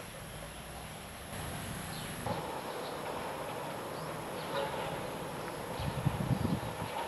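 A steady buzz comes in abruptly about two seconds in and holds, over a faint high whine, with a few low rumbles near the end.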